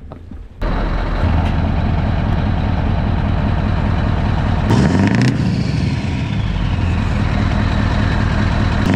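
Scania V8 diesel truck engine running at idle, coming in abruptly about half a second in, with a brief rev about five seconds in.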